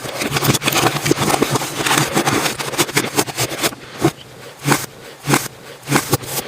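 Slime being squished and pressed by hand, giving a dense run of wet crackles and small pops, with a few louder single pops in the second half.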